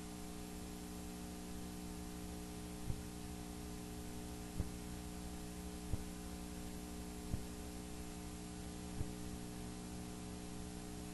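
Steady electrical mains hum made of several steady tones, with a faint short tick about every one and a half seconds.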